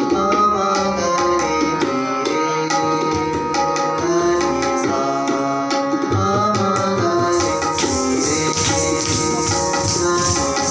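Kathak accompaniment music: tabla playing a rhythm under sustained melodic tones. About seven seconds in, a high jingling joins, typical of the dancers' ankle bells (ghungroo).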